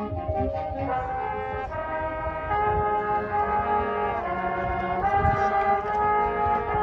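High school marching band playing: the brass section sustains a slow sequence of held chords, changing roughly every second, over low percussion.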